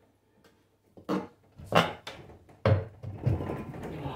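Steel tire iron and vice grips knocking and scraping against a steel lawn-mower wheel rim while a tire bead is levered on by hand. Three sharp clanks come about a second apart, the second loudest, then a stretch of rattling and scraping.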